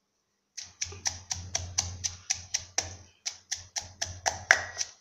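Wooden pestle pounding dried chilies and spices in a clay mortar, steady strokes about four a second, starting about half a second in, with a brief break near three seconds.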